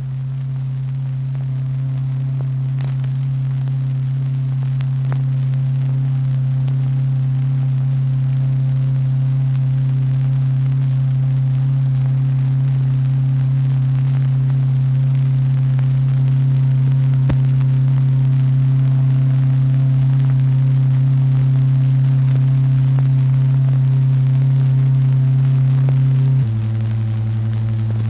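Steady low electronic tone, the oscillator tone driving the vibration that stirs the dyed liquid into vortex pairs. It drops to a lower pitch near the end.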